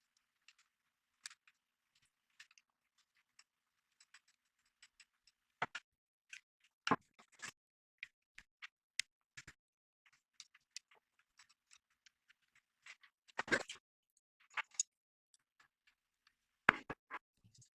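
Hands handling small computer parts and screws: scattered light clicks and taps, with a few louder knocks and one brief scrape about halfway through.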